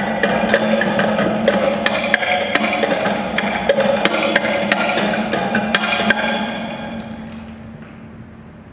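Prepared acoustic guitar lying flat, its clipped strings tapped and struck by hand in quick, irregular percussive clicks over a low ringing note. The tapping stops about six seconds in and the sound fades away.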